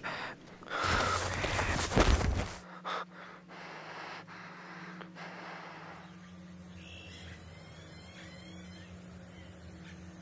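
A loud rushing burst of noise for about two seconds, then a low steady hum with a few faint clicks. About six seconds in, faint bird chirps come over a soft hiss of open-field ambience.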